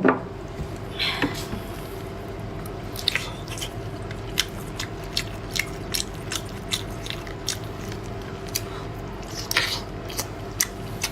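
Close-up chewing and biting of sea cucumber dipped in chili oil: a run of short, wet smacking clicks, about two or three a second, over a faint steady hum.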